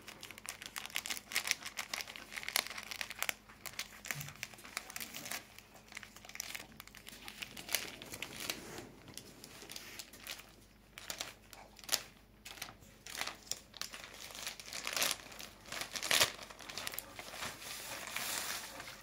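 Plastic courier mailer bag crinkling and rustling as it is slit open with a snap-off utility knife and handled, in irregular crackles.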